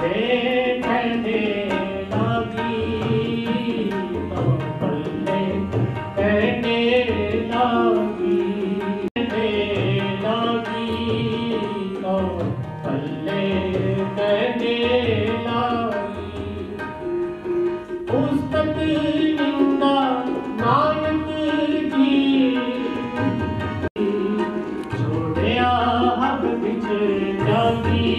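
Sikh devotional kirtan: a melody sung over steady tabla accompaniment.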